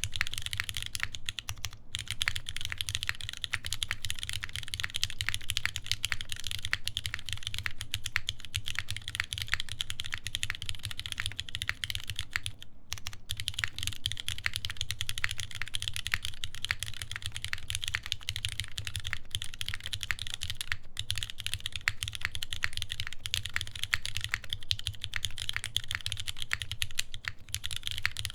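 Continuous fast typing on a mechanical keyboard with lubed vintage Cherry MX Black linear switches, 63 g springs and switch films, mounted on a full aluminium plate and fitted with GMK keycaps. There are brief pauses a couple of seconds in, around halfway, and about three-quarters of the way through.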